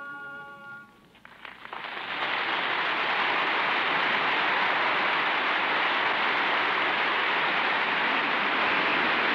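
The music's final held chord stops about a second in, and audience applause breaks out, swelling within a second into steady clapping. It sounds dull, with the highs cut off, as on a 1939 opera recording.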